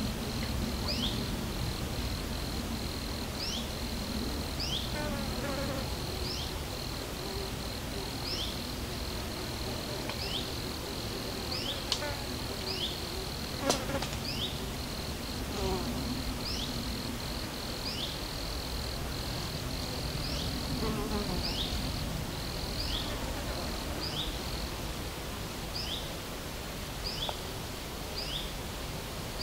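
Summer insect chorus: a steady, high, fast-pulsing insect trill with short rising chirps repeating about once a second over it, and a flying insect buzzing past a few times. One sharp click comes about fourteen seconds in.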